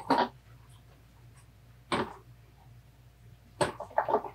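Scuffling and a few sharp knocks from a dog romping with a ball on someone lying on the floor. There is one knock about two seconds in and a cluster of knocks and a short vocal sound near the end.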